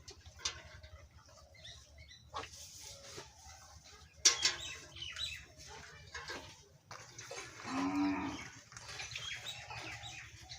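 A cow mooing once, a call of about a second and a half, roughly three-quarters of the way through. Scattered knocks and rustles sound around it, with one sharp knock a little before the middle.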